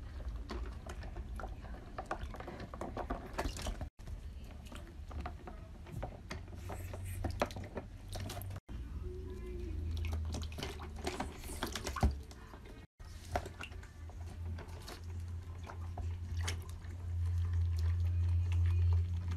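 Water splashing, sloshing and dripping in a shallow plastic tub as a mink dips its head and paws in, with many small splashes and light knocks against the tub.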